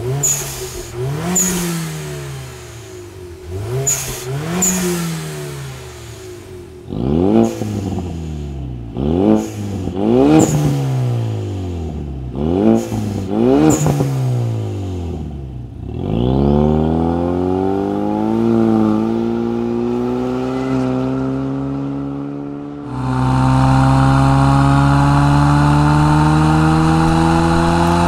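Ford Mustang EcoBoost's 2.3-litre turbo four-cylinder through a MAC Boom Tube muffler-delete axle-back exhaust: a string of quick free revs, each rising and falling sharply, then the car driving off and accelerating, the pitch climbing steadily through the last few seconds.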